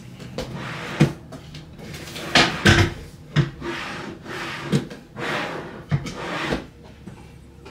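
Rummaging through things in a closet while hunting for a box: a series of irregular knocks and thumps, the loudest a little under three seconds in, with stretches of rustling between them as items are shifted about.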